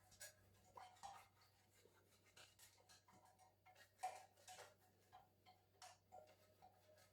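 Faint, scattered light clicks and taps at irregular intervals, the loudest about four seconds in, over a faint steady low hum.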